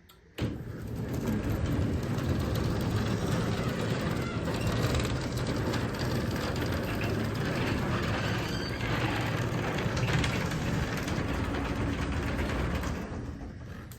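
Genie Excelerator screw-drive garage door opener running as it closes the door, a steady mechanical rumble with the door's travel. It starts about half a second in and dies away near the end as the door finishes closing.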